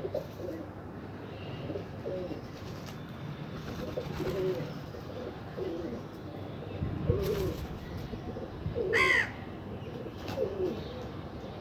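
Pigeon cooing: a string of low, warbling coos roughly once a second, with a brief higher-pitched call about nine seconds in.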